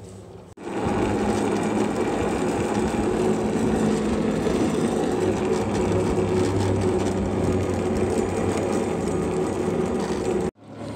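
Pulley wheels of a trail cable car running along the steel cable as the car travels: a loud, steady whirring rumble that starts suddenly about half a second in and stops abruptly near the end.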